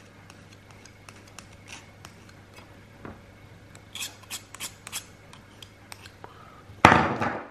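Steel kitchen knife blade scraped and tapped across a matte black Oura Ring. It makes faint, irregular light scratches and ticks, with a quicker run of them about four seconds in. This scratch test leaves faint lines on the ring's finish. A short, louder burst comes near the end.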